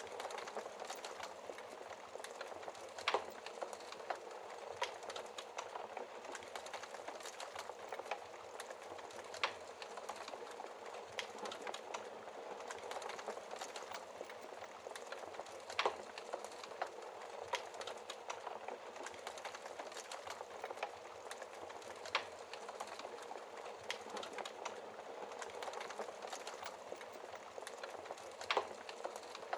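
Wood fire crackling steadily in a fireplace: a dense run of small crackles, with a sharper, louder pop roughly every six seconds.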